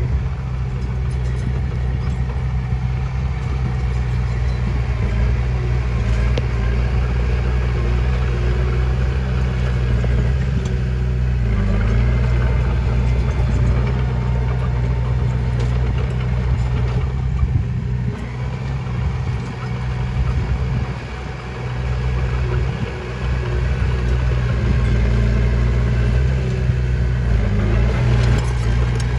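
Diesel engine of a small crawler bulldozer running steadily as it pushes soil, now and then dipping briefly in pitch and level as the load changes.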